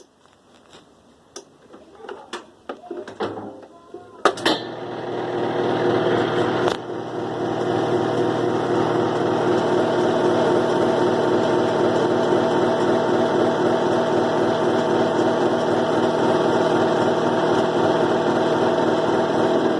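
Kenmore 70 Series direct-drive top-load washer starting a spin: a few clicks, then about four seconds in a click as the motor starts. The machine builds up over the next few seconds into a steady, loud running hum. It carries a strange noise that the repairman suspects comes from the cabinet.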